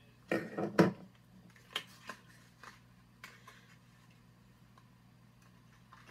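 Cosmetic packaging being handled: a loud burst of rustling about half a second in, then a few light clicks and taps, over a steady low hum.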